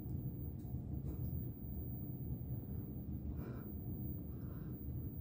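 Steady low rumble of room background noise, with a few faint soft rustles and ticks.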